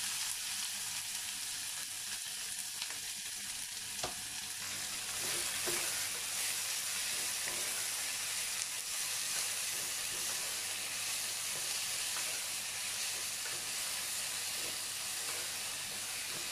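Sliced onions frying in hot oil in an aluminium pressure cooker: a steady sizzle, with a wooden spatula stirring and now and then clicking against the pan.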